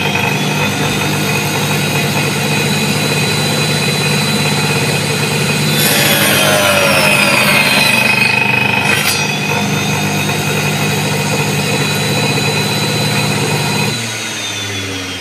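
Angle grinder motor driving the blade of a homemade mini table saw, running with a steady whine. About six seconds in the blade cuts through a piece of wood and the pitch sags under the load for a few seconds, then it runs free again. About fourteen seconds in it is switched off and winds down.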